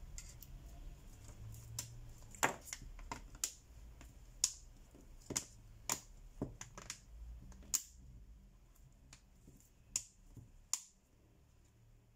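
A dozen or so sharp, irregular clicks and taps as a smartphone and a small precision screwdriver are handled during reassembly.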